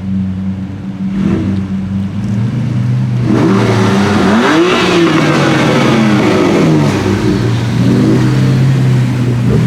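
Mercedes-AMG GT R's twin-turbo V8 through a Fi aftermarket exhaust, idling steadily, then revved several times from about three seconds in, its pitch climbing and falling with each rev.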